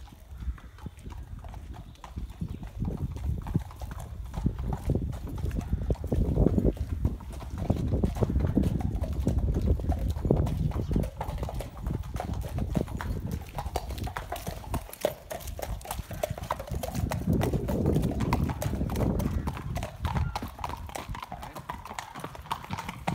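Racehorse's hooves trotting on hard ground, a steady clip-clop that grows louder and fainter at times. This is a trot-up, the horse led up and down so its gait can be checked for soundness.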